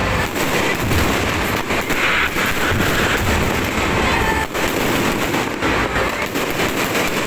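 Fireworks going off without a break: a rapid, continuous run of bangs, pops and crackles from many shells at once.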